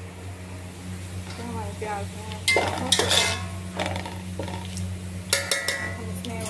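A metal spatula stirring sliced onions frying in oil in a steel pot, scraping and clattering against the pot several times from about two and a half seconds in, with a low, steady hum underneath. The onions are at the light-browning stage.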